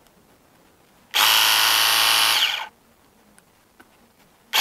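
Battery-powered 24V cordless pressure washer gun's pump motor running steadily for about a second and a half after the trigger is pulled, then cutting off. It starts again right at the end.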